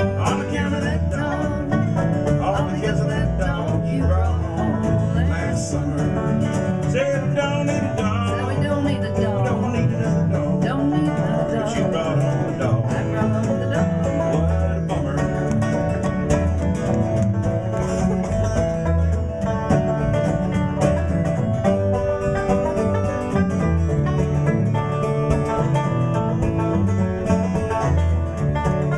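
Live bluegrass-style string band playing an instrumental break: picked banjo over strummed acoustic guitar, with bass underneath.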